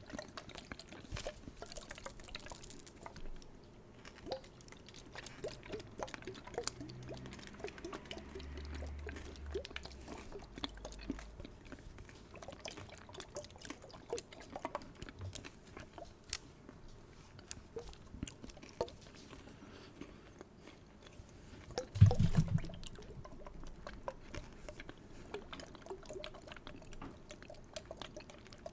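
Close-up liquid sounds: small drips, trickles and wet clicks, with one louder knock about three quarters of the way through.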